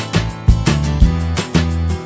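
Instrumental background music with a steady beat, about two beats a second.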